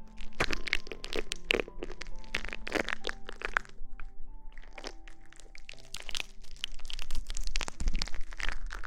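Close-miked ASMR rustling: quick, crisp crackles that come in dense clusters and thin out briefly in the middle, over background music with long held notes.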